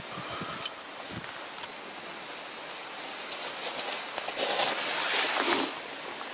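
Small twig campfire burning under a pot of water: a steady hiss with a few sharp crackles, swelling louder for about a second near the end.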